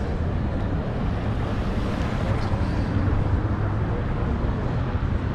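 Steady street traffic rumble with a low hum, with wind on the microphone.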